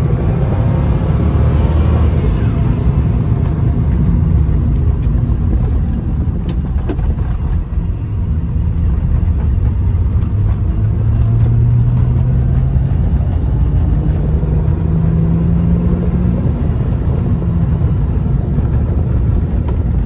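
Cabin sound of a 2000 Qvale Mangusta on the move, its Ford Mustang Cobra V8 running with steady road rumble. The engine note rises in pitch about halfway through as the car gathers speed.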